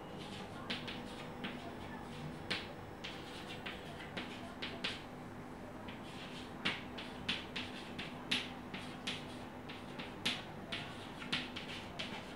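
Chalk tapping and scraping on a green board as words are written: irregular sharp clicks and short scratchy strokes, coming faster in the second half, over a faint steady hum.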